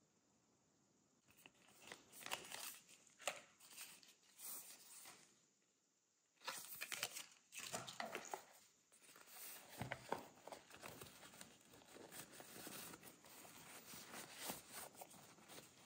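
Close, quiet crinkling and rustling of packaging as small plastic sample sachets and a cotton drawstring pouch are handled. The sound comes in irregular bursts after about a second, pauses briefly near the middle, then turns into near-continuous rustling.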